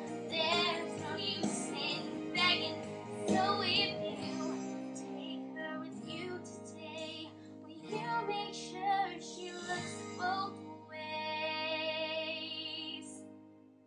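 A girl's solo singing voice over a soft backing track, a slow sung phrase that ends in one long held note with vibrato about eleven seconds in, fading away near the end.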